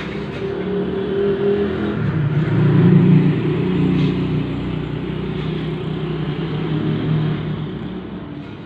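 A steady low mechanical drone that swells around three seconds in and eases off near the end, with a sharp click at the very start.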